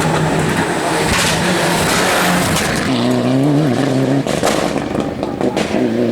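Rally car driven hard, with rough tyre and loose-surface noise at first. About halfway a steady, held engine note comes in, followed by a run of sharp cracks, and the engine note returns near the end.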